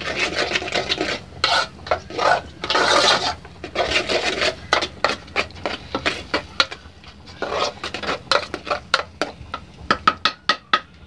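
Metal spoon stirring thick polenta in an aluminium pot, scraping against the sides and bottom in repeated, uneven strokes; the cornmeal has just thickened.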